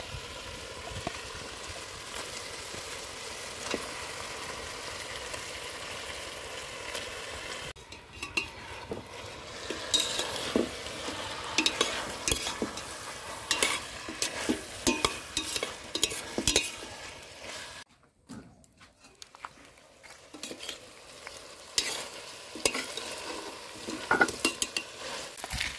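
Pig's feet and sautéed tomatoes and onions sizzling in oil in a metal pot, a steady hiss at first. Then a spoon stirring and scraping against the pot, with many quick clinks over the sizzle. The sound drops out briefly about two-thirds of the way through, and the stirring picks up again.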